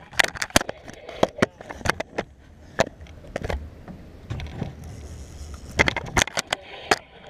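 Handling noise from a camera carried on the body: irregular clicks, knocks and rubbing as it bumps against clothing while the wearer moves, with a low rumble about halfway through.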